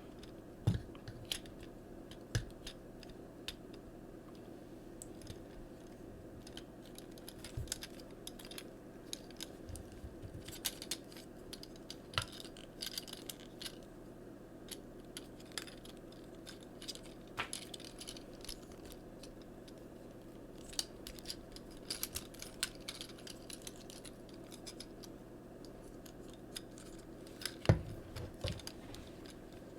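Small plastic clicks and taps of a Transformers Siege Hound action figure being handled and its parts moved during transformation, scattered irregularly over a steady low hum, with one louder knock near the end.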